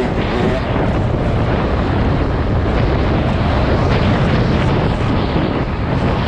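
Motocross bike engine running at speed on a dirt track, heard onboard and largely buried under heavy wind noise on the microphone.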